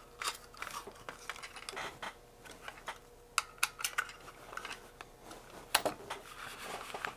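Irregular light clicks and clacks of small plastic and metal parts being handled on a workbench: a partly assembled plastic robot kit with its battery holder and a screwdriver. One sharper clack comes a little before the end.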